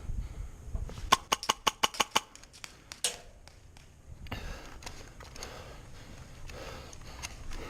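Airsoft gun firing a rapid string of about eight sharp shots in roughly a second, followed by the player's heavy breathing.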